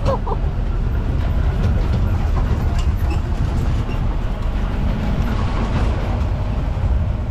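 Off-road jeep driving over a rough dirt track, heard from on board: a steady low rumble of engine and road noise, with a few faint rattles.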